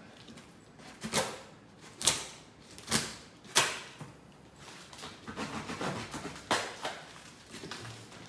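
A blade stabbing and slicing through packing tape into a cardboard box: four sharp strikes about a second apart, then a quicker run of smaller cutting and scraping sounds about five seconds in.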